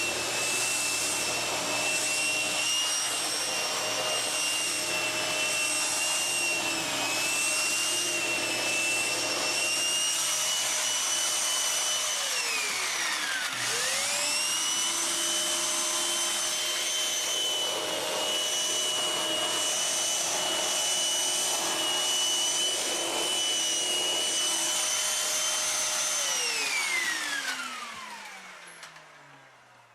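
Kenmore Elite 31150 upright vacuum cleaner running with a steady high whine. About halfway through the pitch dips sharply and comes straight back up. Near the end it is switched off and the motor winds down.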